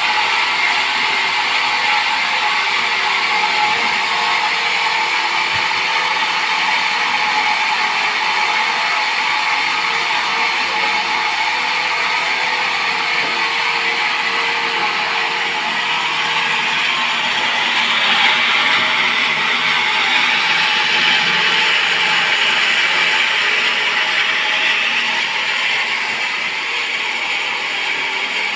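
Sawmill saw cutting through a teak log, a steady mechanical whir. It gets a little louder and brighter about two-thirds of the way through, then eases off near the end.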